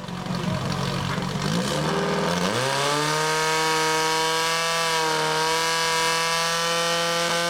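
Portable fire pump engine running, then revving up over about a second and holding steady at high revs as it drives water through the hoses out of the nozzles.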